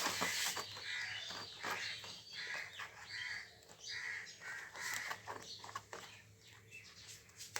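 Crow cawing in a series of short calls, with scattered sharp clicks in between.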